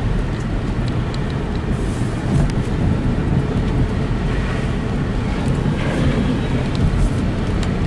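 Car driving on wet, flooded road, heard from inside the cabin: steady low road and engine noise.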